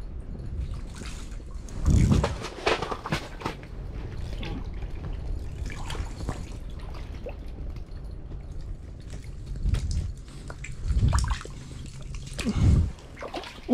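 Water splashing and dripping in an ice-fishing hole as a hooked fish is pulled up through the ice by hand, with several louder splashes.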